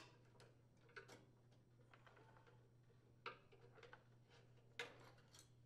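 Near silence: a faint steady low hum, with a handful of faint clicks as a tool and hands work the spring clamp on a rubber fuel line.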